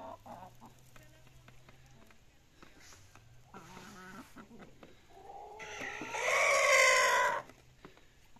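Chickens clucking softly, then one gives a loud, drawn-out call lasting nearly two seconds, starting about five and a half seconds in. It is the call the birds make on spotting something, to alert the rest of the flock.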